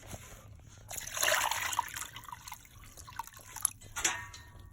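Warm water being poured out, splashing and dribbling, loudest about a second in, with a couple of sharp knocks near the end.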